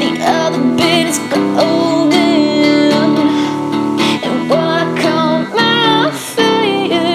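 Music: an indie rock song demo, with guitar strumming sustained chords under a melody line that wavers and glides in pitch.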